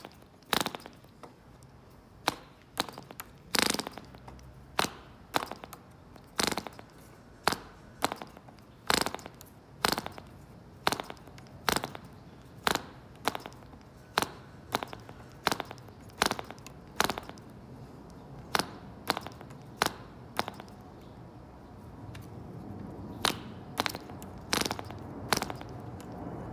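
Elfin 149-copy model diesel engine being hand-started by flicking its propeller with a finger: a sharp snap with each flick, about one a second, without the engine catching.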